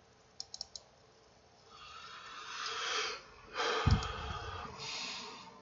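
Three quick mouse clicks, then a person's breathing close to the microphone: three breathy stretches, with a low bump on the microphone near the middle.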